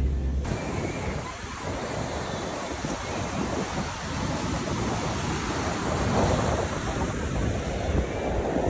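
Sea surf breaking and washing on the shore, mixed with wind buffeting the microphone; the noise cuts in abruptly about half a second in and rises and falls gently.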